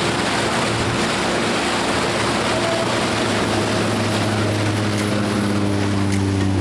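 A small single-engine propeller plane climbing out low just after takeoff. Its propeller drone grows stronger over the second half, over a steady rush of wind and boat noise.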